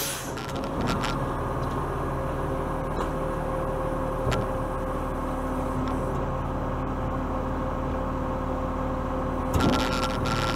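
Garbage truck's diesel engine idling steadily while the truck stands still, with a short burst of hiss near the end.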